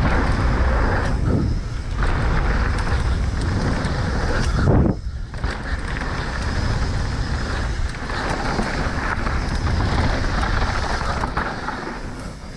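Mountain bike riding fast down a dirt trail: steady wind rush over the camera's microphone mixed with tyre and drivetrain noise, with a louder jolt just before five seconds in followed by a brief lull.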